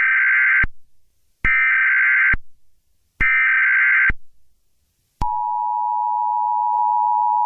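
Emergency Alert System end-of-message signal: three bursts of warbling SAME data tone, each about a second long with a second's gap. About five seconds in, a steady two-pitch EAS attention tone begins and holds.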